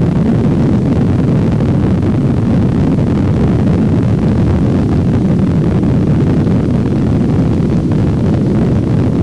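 Motorboat under way at speed: a steady, loud rumble of engine and churning wake, with wind blowing on the microphone.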